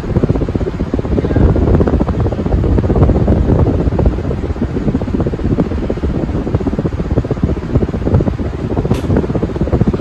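Hunter Osbourne 54-inch ceiling fan running at speed, its air movement making a loud, low, fluttering rush on the microphone. A faint tick sounds about nine seconds in.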